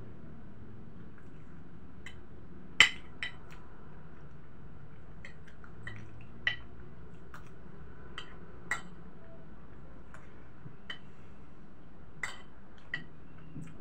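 A spoon clinking and scraping against a plate as someone eats, in a dozen or so scattered sharp clinks, the loudest about three seconds in, over a steady low room hum.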